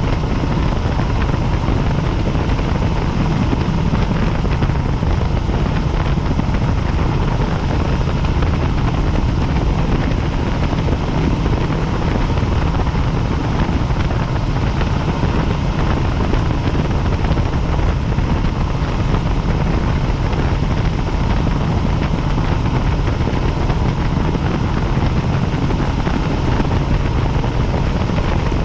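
Helicopter in flight: the loud, steady drone of the rotor and engine, heaviest in the low end, with a faint steady whine.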